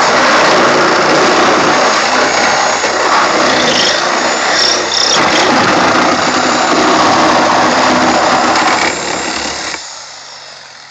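Corded reciprocating saw cutting into a car's rear body sheet metal, running steadily, then dying away and stopping near the end.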